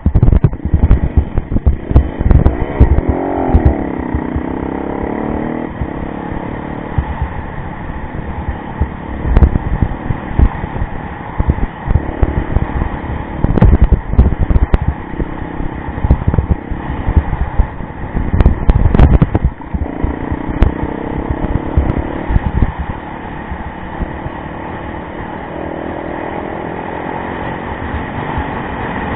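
Yamaha motorcycle engine running and revving up and down as the bike is ridden on a rough dirt track, with many loud, irregular low thumps and buffeting over it.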